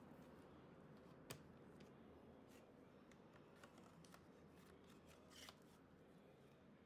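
Faint handling noise of a plastic CD jewel case and cardboard packaging being moved and set down on a table: a sharp click about a second in, scattered light clicks and taps, and a short rustle about five seconds in.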